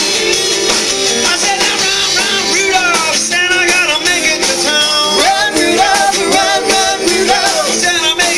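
Live band playing a rock-and-roll number on guitars and drums, with singing.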